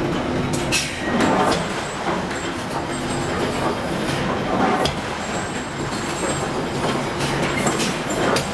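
Steady machinery noise of a steel forging shop, broken by several sharp metallic knocks and clanks.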